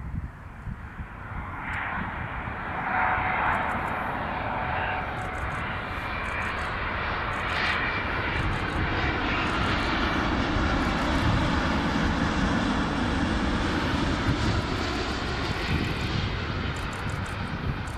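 Boeing 787-8 airliner on final approach, its GEnx-1B turbofans at approach power: a jet rumble and whine that swells over the first few seconds as it comes closer, then holds loud as it passes and flares over the runway.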